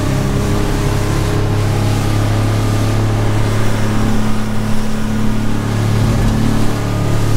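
A boat's 250-horsepower outboard motor runs steadily at cruising speed with an even low drone. Rushing water and spray from the hull cutting through the sea run underneath it.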